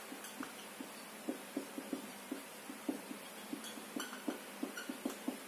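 Marker writing on a whiteboard: a string of short, irregular squeaks and strokes as words are written out.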